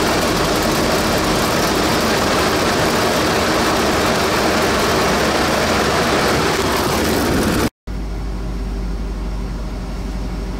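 Dodge D600 truck's 361 Chrysler big-block V8 running on its freshly rebuilt Carter BBD carburetor, loud and steady when heard close up in the engine bay. After a cut near the end it idles more quietly, heard from inside the cab as a steady low hum.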